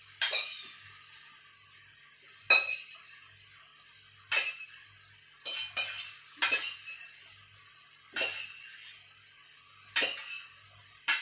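Metal utensil clanking and scraping against a pan as the spaghetti is stir-fried: about eight sharp clanks, one every second and a half to two seconds, each ringing off briefly.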